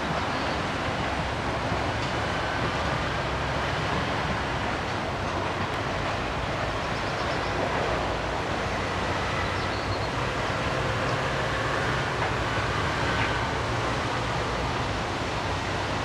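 A freight train of covered hopper wagons rolling away over the rails, with a steady rumble and rattle of wheels on track.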